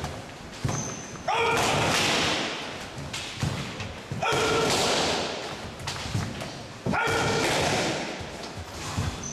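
Loud karate shouts (kiai) about every three seconds, each held for around a second and echoing in a large hall. Short thuds of feet and strikes on the wooden floor come in between.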